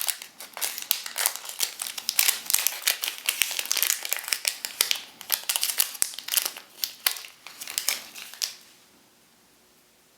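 Plastic packaging crinkling and rustling as it is handled, with many small crackles and clicks, stopping about eight and a half seconds in.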